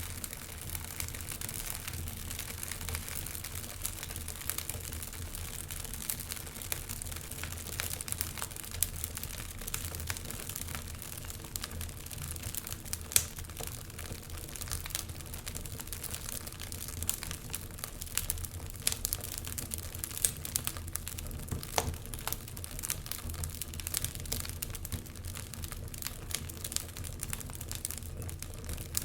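Wood fire crackling in a fireplace: a steady stream of small snaps and pops over a low rumble, with one loud pop about 13 seconds in.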